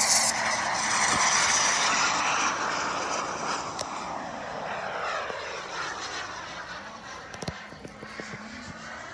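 Kingtech K-260 turbine of a large RC jet in flight, a loud rushing jet whine. The jet passes, its pitch falls, and it fades steadily as the jet climbs away.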